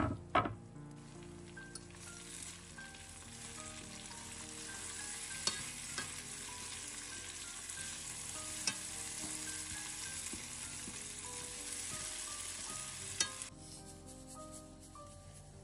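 Sliced mushrooms, onion and chicken sizzling in a hot stainless steel skillet as they are stirred with tongs, with a few sharp clicks along the way. Two knocks at the very start; the sizzle drops off suddenly near the end. Soft background music underneath.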